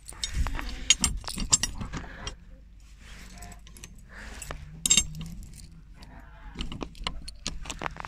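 Bunch of keys on a lanyard jangling against a padlock and chain while the lock is worked, a string of sharp metallic clicks and rattles, busiest in the first two seconds and again near the end.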